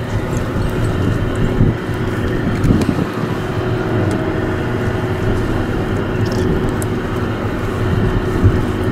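Steady hum of shipboard machinery, several held tones under a rushing noise, with wind on the microphone.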